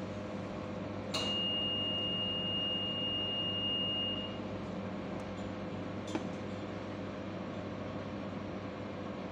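A single steady high electronic beep, lasting about three seconds and starting with a click about a second in, over the steady low hum of the ship's machinery. A faint click follows about six seconds in.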